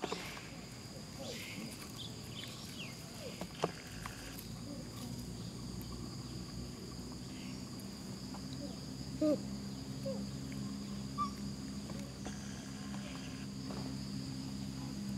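Steady high-pitched insect chirring, with a low hum that grows stronger about halfway through. A few brief sharp calls or squeaks stand out, the loudest about four seconds in and again about nine seconds in.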